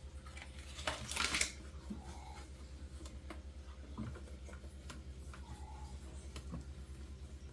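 A dry towel wiped over refrigerator surfaces: one brief rubbing swish about a second in, then small clicks and knocks of handling, over a steady low hum.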